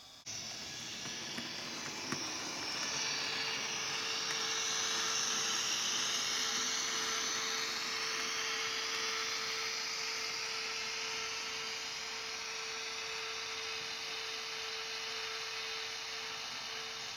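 Bemo model of a Rhaetian Railway electric locomotive running under its ESU LokSound decoder: electric traction whine and hum from the model's small speaker, with the whine shifting in pitch as it moves. It starts abruptly just after the start and eases off near the end.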